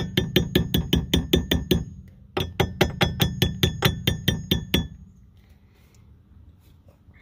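A hammer tapping rapidly on the thin pressed-steel dust shield around the front wheel spindle of a 1990 BMW 325i (E30), about six light taps a second, each with a ringing clink; the strikes pause briefly near two seconds in, resume, and stop about five seconds in. The tapping is reshaping the bent dust shield back to round.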